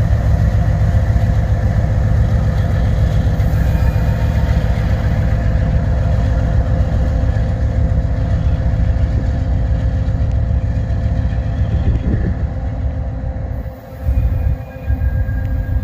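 BNSF diesel freight locomotives running with their train of flatcars rolling on the rails: a steady, loud low rumble with a few steady tones over it. The sound dips briefly near the end and comes back.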